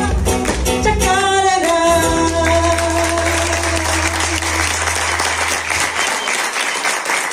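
Closing bars of a chacarera sung by a woman with instrumental accompaniment, ending on a long held note. The audience starts applauding about halfway through, and the applause carries on alone after the music stops near the end.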